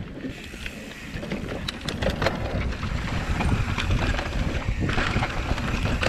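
Wind buffeting the camera microphone while a hardtail mountain bike rolls over a dirt trail, tyre and trail noise growing louder, with a few sharp clicks about two seconds in.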